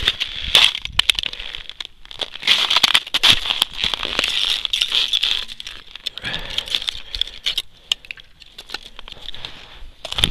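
Footsteps crunching on frozen snow and ice rubble, an irregular run of crunches mixed with sharp crackles and clicks, quieter and sparser in the second half.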